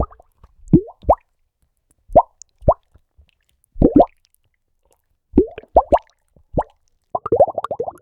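Bubble-burst sound effect: soft, separate pops, each a quick upward-gliding 'bloop', coming irregularly about half a second to a second apart. About seven seconds in they give way to a rapid flurry of many pops.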